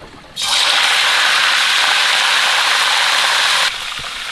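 Chicken racks deep-frying in hot oil: a loud, crackling sizzle that sets in suddenly about half a second in and drops to a quieter sizzle shortly before the end.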